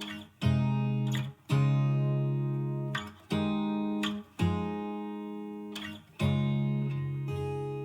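Background music of guitar chords. Each chord is strummed, rings and fades away, and a new one comes every one to two seconds.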